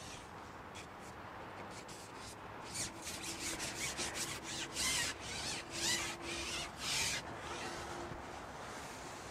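Long match-fishing pole being shipped back, sliding along in a series of about ten short rasping rubs over a few seconds, the last three the loudest.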